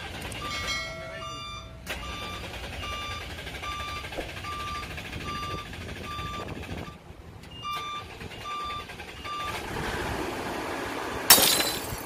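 Tracked rice combine harvester's warning beeper sounding short beeps about twice a second over its idling engine, stopping briefly once and again a couple of seconds before the end. A sudden loud burst of noise comes near the end.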